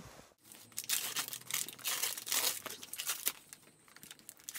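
Paper and plastic wrapping crinkling and rustling as a present is unwrapped from a paper gift bag. The rustling is busiest over the first three seconds, then tails off into a few light clicks.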